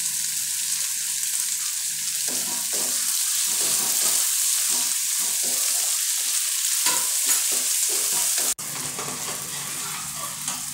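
Chopped onions, tomatoes and green chillies sizzling in mustard oil in a metal kadai, stirred and scraped with a wooden spatula. The sizzle is steady, the scraping comes and goes from about two seconds in, and the level drops suddenly near the end, the frying going on more quietly.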